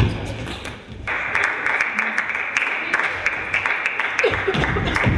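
Table tennis ball clicking off the rackets and the table during a rally, over a steady hiss of background noise in the hall that starts about a second in.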